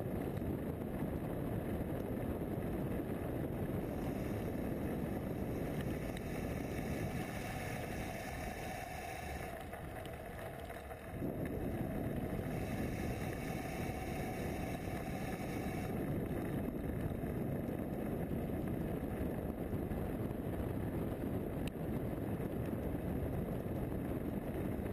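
Mountain bike rolling fast down a gravel track, heard through a bike-mounted GoPro: a steady rush of wind on the microphone with tyre and frame rumble. It eases for a few seconds about eight seconds in, then comes back as loud.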